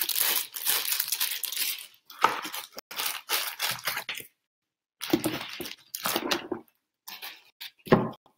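Packing material crinkling and rustling as an item is unwrapped from its package by hand, in four bursts with short pauses between.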